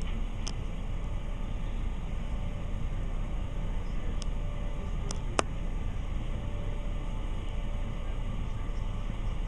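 Steady low outdoor city rumble, with a few faint short ticks and one sharper tick about five and a half seconds in.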